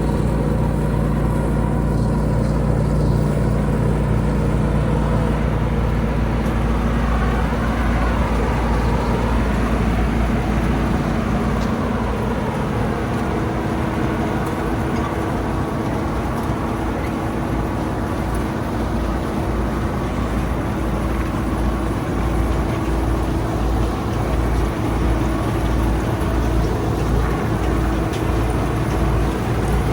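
Bizon combine harvester running steadily, its engine and threshing machinery making a continuous loud hum. A higher steady tone joins about a third of the way in.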